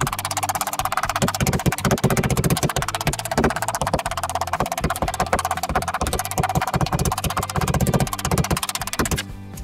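Rapid repeated blows of a meat mallet flattening a pork fillet on a wooden cutting board, with background music under them.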